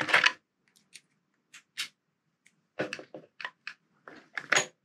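Small hard clicks and taps of RC truck drivetrain parts being handled and seated: a drive gear with its bearing going down into the gear housing. The clicks come a few at a time at first, then in a quicker cluster in the second half.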